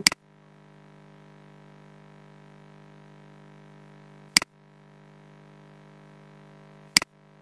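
Three sharp computer-mouse clicks, about a second in, a little past four seconds and near the end, over a steady electrical hum.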